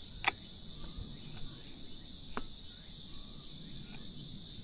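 Steady high-pitched chirring of insects, with two sharp clicks, one just after the start and another about two and a half seconds in.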